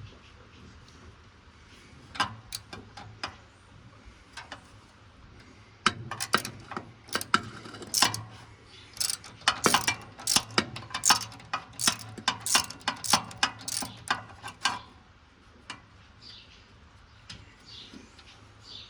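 Hand ratchet wrench clicking in quick back-strokes as a stubborn bolt is worked loose on the tractor's exhaust. A few scattered clicks come first, then dense runs of clicks from about six seconds in until about fifteen seconds in.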